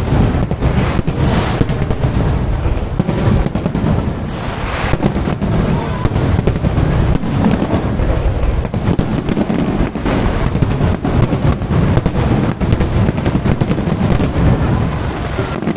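Fireworks going off in a loud, rapid, unbroken barrage of bangs and crackles.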